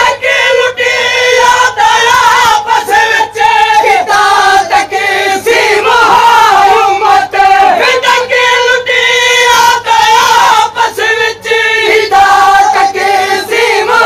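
A crowd of men chanting a Siraiki noha in unison, loud and continuous, with sharp hand slaps of chest-beating (matam) about once a second.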